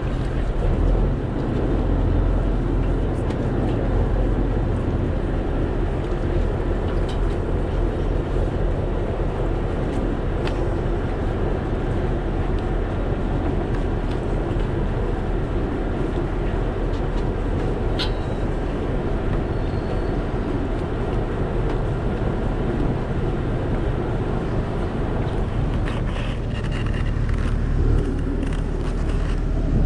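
Fishing boat's inboard engine running steadily under way, a dense low rumble with a few faint clicks.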